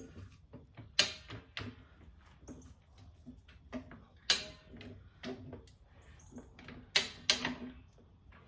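Scattered sharp clicks and knocks with short scrapes from a Rabaconda tire changer's mounting tool and the motorcycle tire as the second bead is worked over the rim; the loudest knocks come about a second in, near the middle and twice close together near the end.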